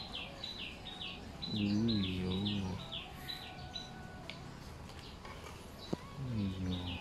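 A small bird chirping in a fast run of falling notes, about three a second, breaking off about three seconds in and starting again near the end. A louder, low wavering voice-like sound comes about two seconds in and again near the end, with a single click about six seconds in.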